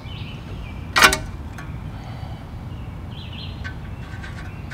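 Hand-tool work on a Jeep's steering linkage: one sharp metallic clack about a second in, then a few light ticks near the end, over a steady low rumble.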